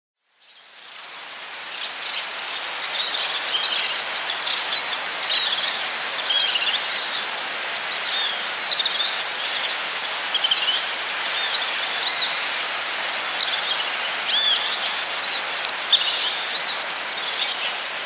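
Forest birdsong: several birds singing and calling in many short chirps and whistles over a steady hiss, fading in over the first couple of seconds.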